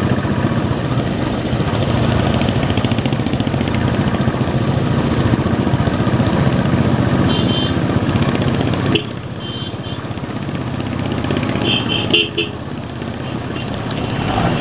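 Royal Enfield Bullet 500's single-cylinder engine running under way, heard from on board the motorcycle. The engine gets quieter about nine seconds in. A vehicle horn toots briefly a few times in the second half.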